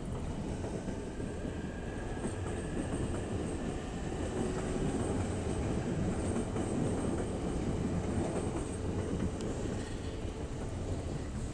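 Electric passenger train running past on the tracks below. Its rolling noise swells to a peak around the middle and eases slightly near the end.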